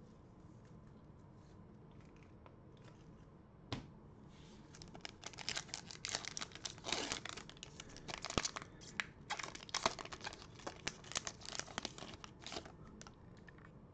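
Foil wrapper of a Panini Prizm basketball card pack being torn open and crinkled by hand, a dense run of tearing and crackling that starts about five seconds in and eases off near the end. A single sharp click comes a little before it.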